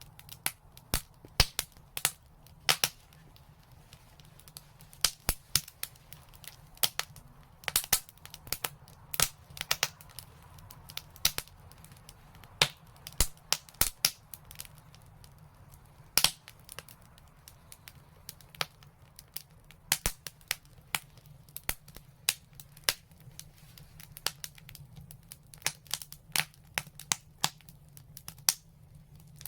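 Fireplace fire crackling, with frequent sharp pops at irregular intervals, some much louder than others, over a low steady rumble.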